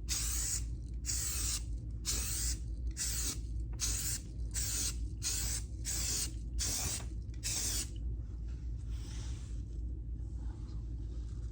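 Aerosol spray can of primer sprayed in quick short bursts, about two a second, for most of the time, then a fainter, longer spray near the end.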